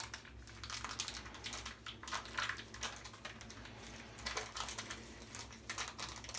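Crinkling and rustling of the wrapping being pulled off a safety razor handle, in irregular small crackles.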